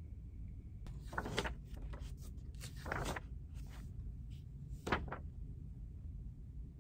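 Soft rustling and handling noises of a book's paper pages and clothing moved at a desk: a few brief rustles about a second in, around three seconds and near five seconds, over a low steady room hum.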